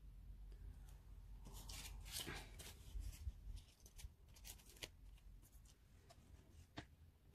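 Faint paper rustling, then a scatter of small clicks and ticks: a sticker sheet being handled and a sticker peeled off its backing.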